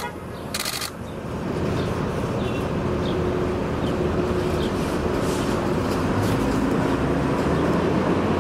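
Steady low rumbling background noise, with a short burst of rapid camera shutter clicks a little over half a second in.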